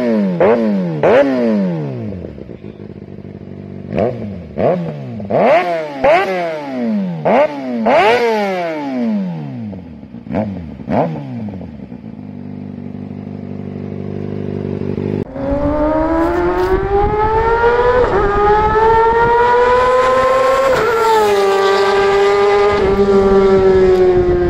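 2019 Kawasaki ZX-6R's 636 cc inline-four through an M4 GP slip-on exhaust, blipped in about a dozen sharp free revs that each fall back, then idling steadily for a few seconds. About fifteen seconds in it cuts to the engine pulling under way, its pitch climbing steadily, then dropping once at a gear change and holding.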